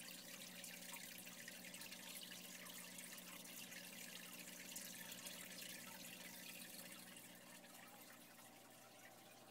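Faint running and dripping water from a reef aquarium's circulation, with a steady low hum underneath; it gets a little quieter near the end.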